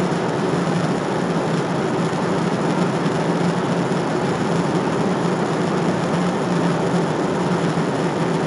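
Steady cabin noise of a jet airliner in cruise: an even rush of engines and airflow with a steady low drone underneath.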